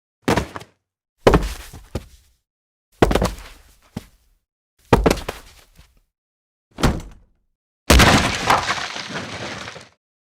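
Body-fall sound effects: five separate heavy thuds a second or two apart, each trailing off in smaller knocks, then a longer crash about eight seconds in that rattles on for about two seconds.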